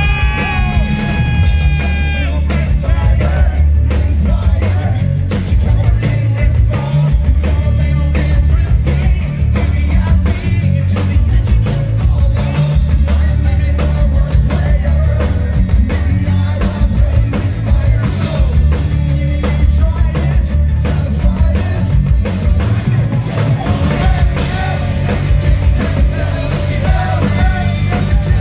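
Rock band playing live through a concert PA, heard from within the crowd: heavy bass and a steady drum beat under electric guitar, with a sung vocal line in the first couple of seconds and again near the end.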